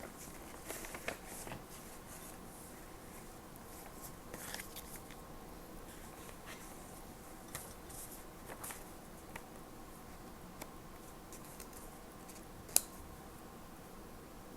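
Small stationery items being handled: scattered light clicks, taps and paper rustles, with one sharp click about 13 seconds in.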